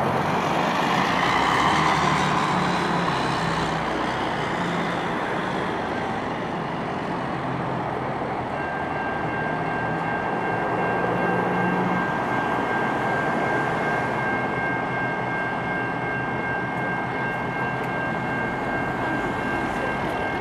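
EMD GP38-2 diesel locomotive, its non-turbocharged V16 running, rolling slowly with an auto-rack train over jointed curving track. From about eight seconds in, a steady high squeal from the train's wheels joins in and holds.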